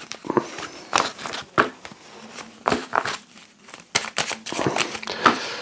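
Tarot cards being shuffled and cut by hand: a run of irregular snaps and rustles as the cards are handled.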